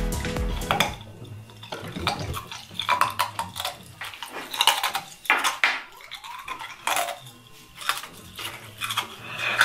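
Ice cubes clinking against a ceramic bowl and being crunched between teeth: a scattered run of sharp clicks and crackles.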